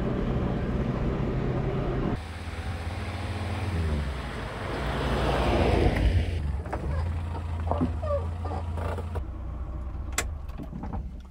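Morris Minor's four-cylinder engine running as the car drives along, at first a steady drone inside the cabin. About two seconds in the sound changes, swells to its loudest around six seconds, then eases off, with a few light clicks near the end.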